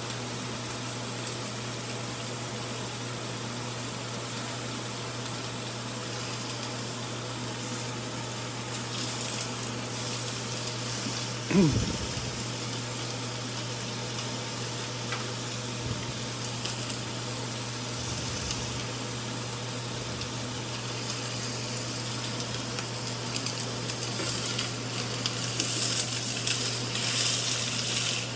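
Bone-in pork chops sizzling on a hot ridged grill pan, with green beans frying and charring in a skillet beside them: a steady sizzle that thickens into louder crackling spatter near the end.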